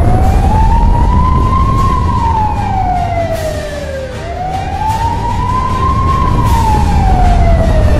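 Fire engine siren wailing, rising slowly and then falling, twice, about four seconds per cycle, over a heavy low rumble.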